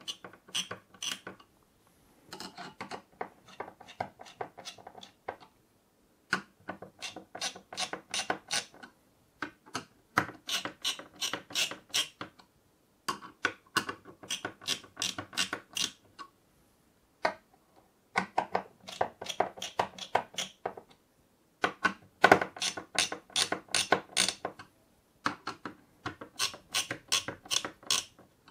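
Screwdriver tightening the spring-loaded mounting screws of an AIO cooler's pump head: repeated runs of rapid clicking, each one to three seconds long, with short pauses between as the screws are turned a few turns at a time.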